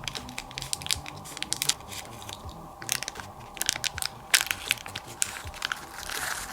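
Rapid crackling clicks and crinkles of slime-kit ingredients and plastic packaging being handled, over soft background music.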